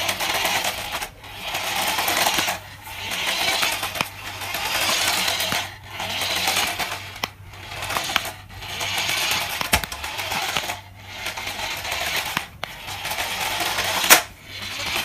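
Cheap battery-powered toy RC car's small electric motor and plastic gears whirring, with the wheels rattling on a tiled floor, driven in short spurts of a second or so, about ten in a row. A sharp knock comes near the end.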